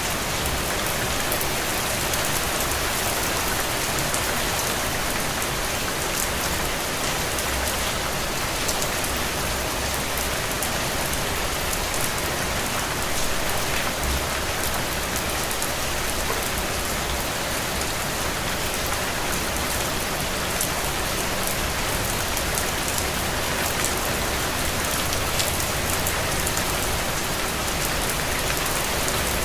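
Steady rain falling on a window: an even hiss spread with many small, scattered drop ticks.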